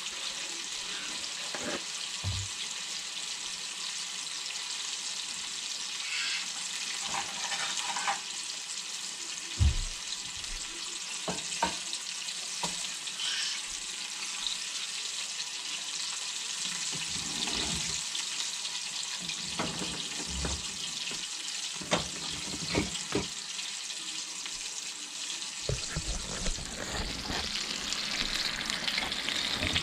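Flour-breaded burbot pieces deep-frying in oil in a cast-iron skillet: a steady sizzle, with a few short clicks and knocks scattered through it. The pieces are nearly done.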